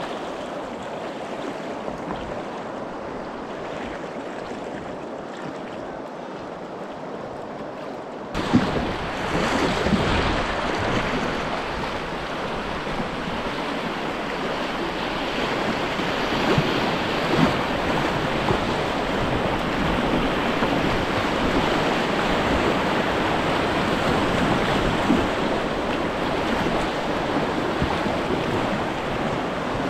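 Rushing river water and paddle splashes around a whitewater kayak, with some wind on the microphone. The water noise jumps suddenly louder about eight seconds in as the kayak runs into a rapid, then stays loud.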